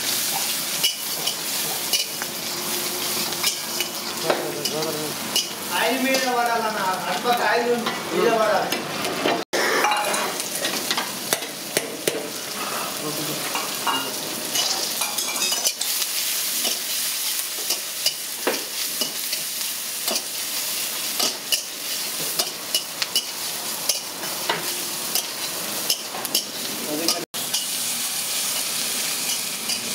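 Paneer cubes and onion sizzling in hot oil in a large iron kadai, stirred and tossed with a flat metal spatula that scrapes and clinks on the pan. The sizzling is continuous, with two very brief dropouts.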